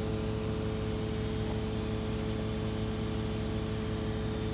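Steady mechanical hum at an even level, holding several constant pitches, like a running motor or engine.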